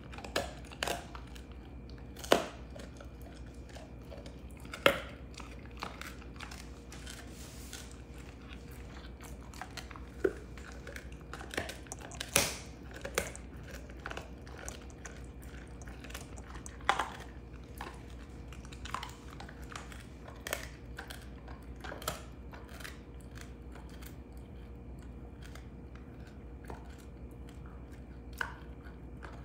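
Belgian Malinois chewing a beef rib bone: irregular sharp crunches and cracks every few seconds as the bone gives under his teeth, with quieter gnawing between.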